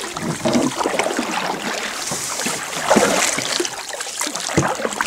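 Kayak paddles dipping into and pulling through river water, with irregular splashing and dripping.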